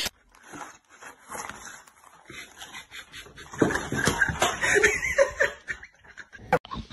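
A person laughing quietly under their breath, with scattered rustling and clicking.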